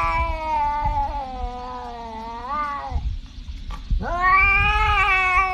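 Tabby cat yowling in two long, drawn-out calls. The first wavers, rises near its end and stops about three seconds in. After a second's pause, the second swoops sharply up and holds. A low rumble runs beneath.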